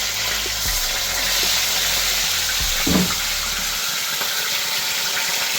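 Marinated trout pieces sizzling steadily in hot oil in a frying pan, with a short knock about three seconds in.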